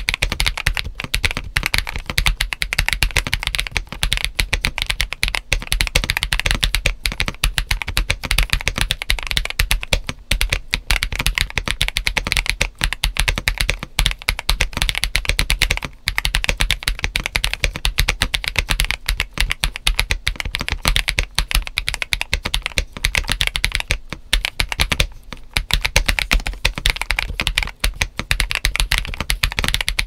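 Fast typing on a GAS67 mechanical keyboard with Akko CS Vintage White linear switches, PE foam and ABS doubleshot Cherry-profile keycaps. It gives a poppy, clacky sound: a dense stream of key clicks broken by a few short pauses.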